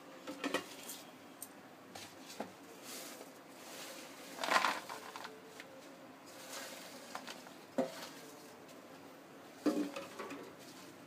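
Crisp fried potato fries handled and laid out by hand from a steel plate onto a plastic tray: scattered light clinks and rustles, the loudest about halfway through.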